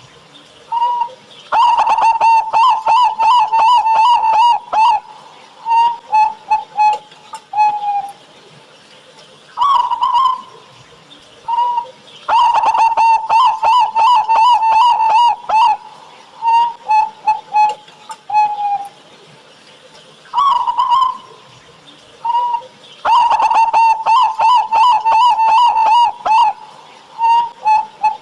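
Local zebra dove (perkutut) singing its full cooing song three times, about every ten seconds. Each song is an opening coo, then a fast rolling run of rapid notes, then a few separate coos, the last one falling slightly.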